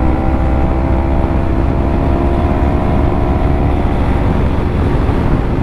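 Yamaha R3's 321 cc parallel-twin engine running at steady revs while the motorcycle rides along a highway, heard from the rider's seat, with a steady low rumble beneath the engine note.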